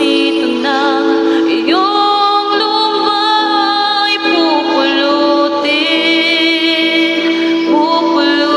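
A woman singing into a close microphone over a backing track, holding long notes with vibrato that slide between pitches.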